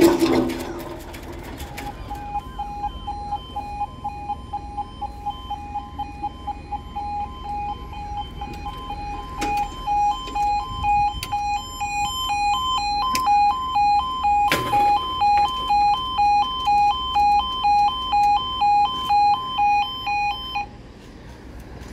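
Level crossing audible warning alarm sounding as the barriers come down: a two-tone yodel alternating about twice a second. It grows louder about halfway through and cuts off suddenly near the end, with the barriers down.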